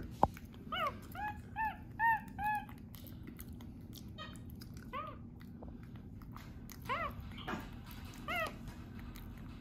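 Capuchin monkey giving short high-pitched chirps, each rising then falling in pitch: a quick run of about five in the first few seconds, then three more spaced out later.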